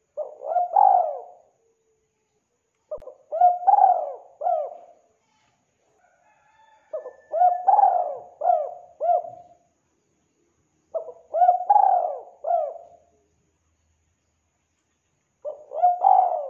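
Spotted dove cooing: five phrases of three to five notes each, about four seconds apart. The last phrase runs on past the end.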